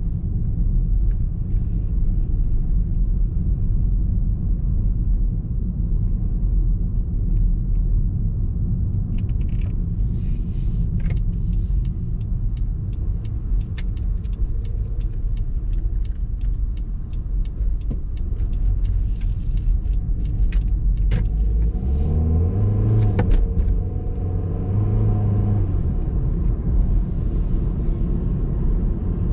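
Car on the move, a steady low rumble of engine and road. For about ten seconds in the middle a regular clicking runs at about one and a half clicks a second. Near the end the engine note rises and falls as the car speeds up.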